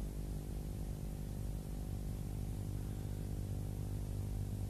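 A steady low hum with faint hiss and no distinct hammer blows: the background noise of the recording.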